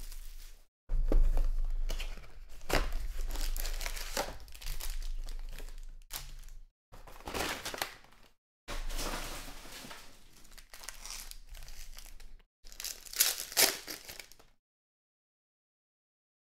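Panini Prizm trading-card packs being handled and torn open, their plastic-foil wrappers crinkling and ripping in a series of rustling bursts with short gaps. The sound cuts off about two seconds before the end.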